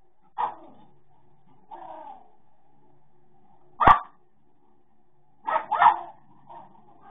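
Dog barking in short single barks: one near the start, a softer one, the loudest about four seconds in, then two quick barks close together and a faint one near the end, over a faint steady hum.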